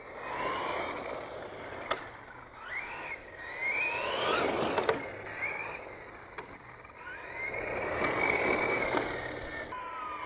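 1:8-scale CEN Racing Ford Puma Rally1 RC car driving fast on a concrete driveway: its brushless motor whines up and down in pitch over several throttle bursts, over the rushing noise of its tyres on the concrete. There are a couple of sharp clicks along the way, and a steady whine starts near the end.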